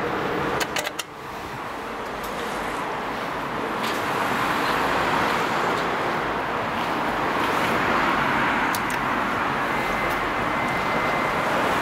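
A quick cluster of clicks about a second in as an elevator call button is pressed, then a steady hiss and rumble of outdoor traffic that grows louder after a few seconds.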